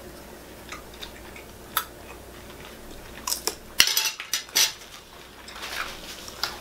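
Scattered light clicks and scrapes of a metal fork against a plate, with chewing, at a table meal; a cluster of sharper clicks comes a little past halfway.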